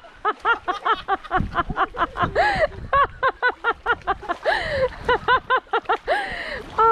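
A child laughing in rapid high-pitched 'ha-ha' bursts, about five a second, broken by a few longer falling squeals.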